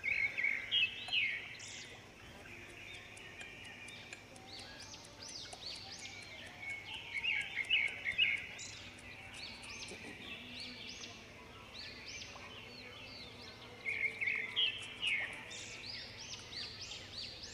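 Small birds chirping and chattering in quick, high calls, in three louder bursts: about a second in, around seven to eight seconds in, and again near the end.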